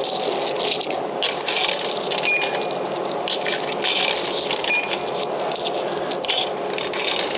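Coins clinking one after another as they are fed into a drink vending machine, a string of short metallic clinks with brief ringing.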